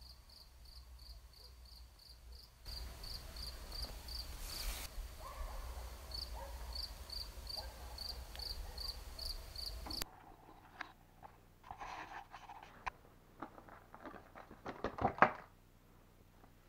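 A cricket chirping in short, evenly spaced chirps, two or three a second, over a low steady rumble. About ten seconds in it cuts off, and scattered rustling and handling knocks follow, the loudest near the end.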